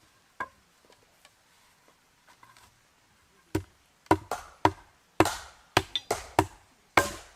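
Wood being struck with a tool: a few light knocks, then about ten heavy blows starting about three and a half seconds in, some in quick succession.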